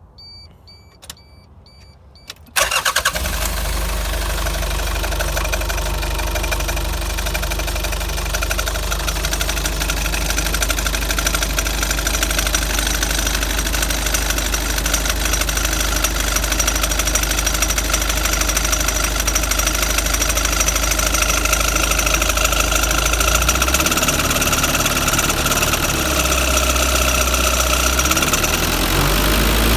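Mitsubishi Delica L300 van's engine starting about two and a half seconds in, after a few short beeps and a click, then idling with a steady high-pitched squeak running over the engine note.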